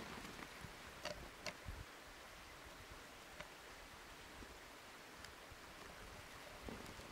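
Akita puppy rooting about in a snowy hollow under a bank: faint rustling with a few soft clicks, two of them about a second in.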